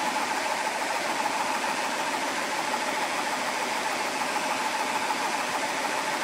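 GX CS4 portable high-pressure PCP air compressor running steadily, a constant hum with a steady whine near 1 kHz. It is working against close to 150 bar in the line and filter, just before air starts flowing into the rifle's bottle.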